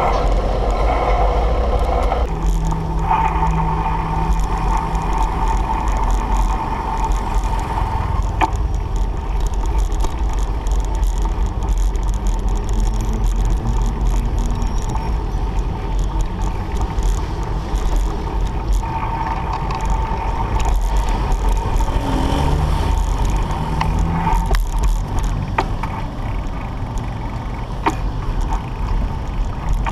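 City street traffic heard while riding a bike, with a constant low rumble of wind buffeting the microphone. A steady whine from passing motor traffic comes and goes, and there are a few sharp clicks.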